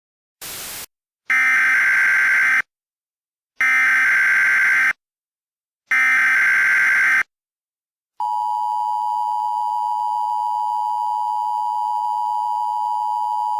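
Emergency Alert System header: after a short burst of static, three identical bursts of warbling digital data tones play, followed by the steady two-tone EAS attention signal, which starts about eight seconds in.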